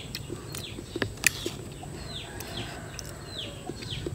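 Outdoor birds chirping: short calls that each fall in pitch, repeating about twice a second through the second half. A couple of sharp clicks about a second in.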